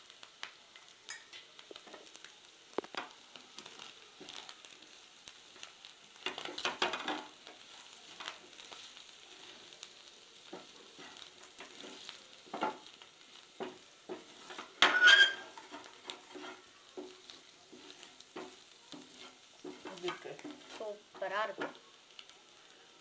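Baby potatoes frying in oil in a nonstick pan, stirred and tossed with a spatula: scrapes and light knocks against the pan over a soft sizzle. There is a louder bout of stirring about six seconds in and a sharp clatter against the pan around fifteen seconds in.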